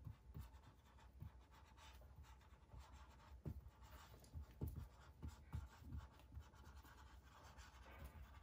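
Faint squeak and scratch of a felt-tip marker writing on a whiteboard, in many short, irregular strokes.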